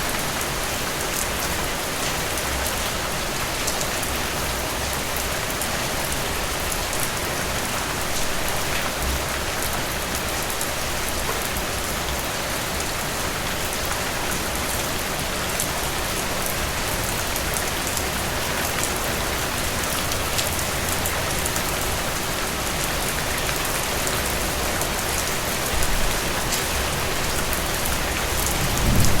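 Heavy rain falling steadily: a dense, even hiss with the clicks of single drops. A low rumble rises near the end.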